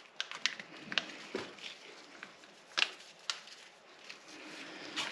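Kitchen handling noises: a handful of light clicks and taps at irregular spacing as utensils and ingredients are handled while adding baking powder to the dough.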